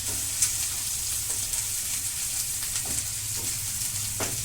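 Chopped onion, peas and carrot sizzling in ghee in a nonstick pan, with scattered light taps and scrapes of stirring.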